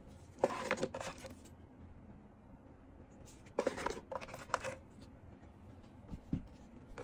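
Cellophane-wrapped cardboard lighter boxes handled and lifted from a display shelf: crinkling and light clacks in two short bursts, about half a second in and again after three and a half seconds.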